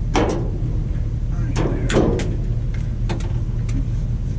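Sharp clicks and knocks from the underhood work light's plastic housing and magnetic end bases being handled and set against the steel underside of a truck hood, several in small groups, over a steady low hum.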